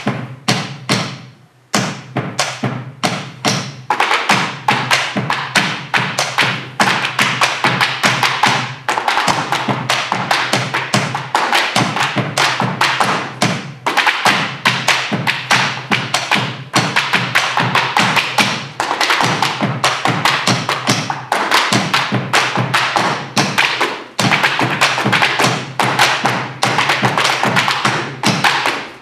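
Malambo percussion: boleadoras struck in quick rhythm against a wooden stage floor together with stamping zapateo footwork, over bombo legüero drums. The strikes are sparse for the first two seconds, then come thick and fast.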